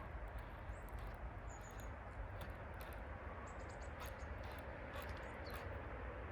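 Steady outdoor ambience with a low wind rumble on the microphone, scattered light clicks, and a few faint, short, high bird chirps.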